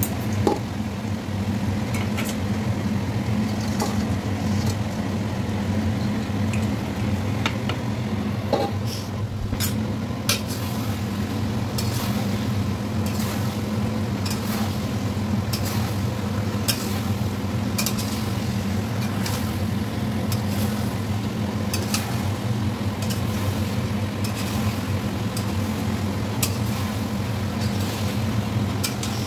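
Metal spatula scraping and clinking against a metal kadai as fried chicken pakoras are stirred into chilli chicken sauce, many short knocks over a steady low hum.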